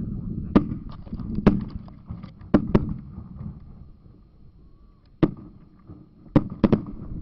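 Fireworks going off: a string of about eight sharp, irregularly spaced bangs, each with a short ringing tail, two of them in quick succession near the end.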